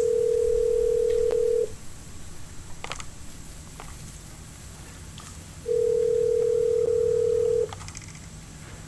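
Telephone ringback tone of an outgoing call waiting to be answered: two steady, identical rings of about two seconds each, with about four seconds of silence between them, in the North American ring cadence.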